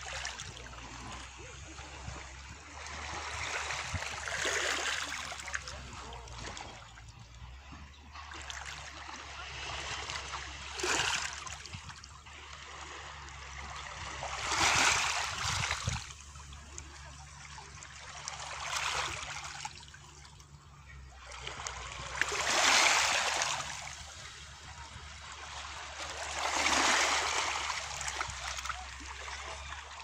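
Small sea waves lapping on a pebble beach, the water washing over the stones in swells that come and go every four seconds or so.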